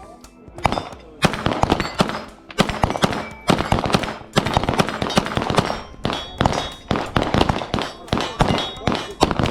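Rapid pistol fire on a shooting range: many sharp shots in quick strings, several a second, overlapping as if from more than one gun, with some ringing hits.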